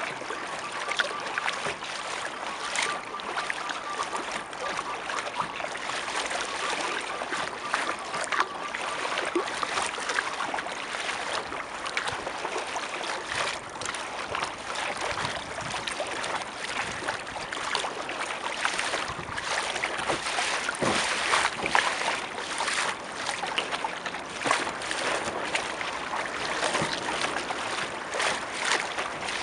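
Water splashing and lapping close to a kayak's hull as it is paddled, with many small splashes.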